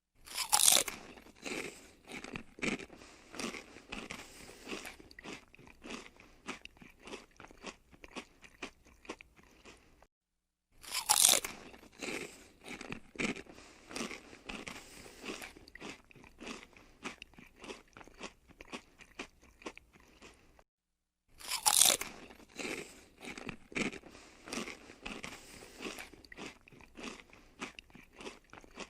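Crispy fried potatoes (batata frita) being bitten and chewed. Each of three rounds opens with a loud crunching bite, followed by about ten seconds of chewing crunches that grow softer, with brief silences between the rounds.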